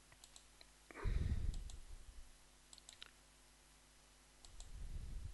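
Faint, scattered clicks of a computer mouse button as menus are opened, with a louder low, muffled thump of noise about a second in and a weaker low rumble near the end.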